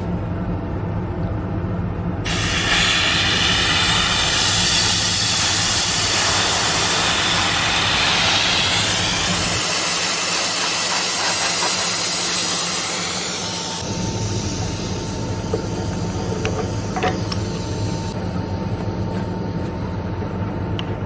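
Anhydrous ammonia hissing as it vents from the hose valve and coupling, bleeding the line off to unhook the nurse tank. The hiss starts about two seconds in and stops at about fourteen seconds, over a steady low engine hum.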